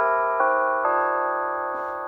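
Church bells chiming a tune: three notes struck about half a second apart, the last left ringing and slowly fading.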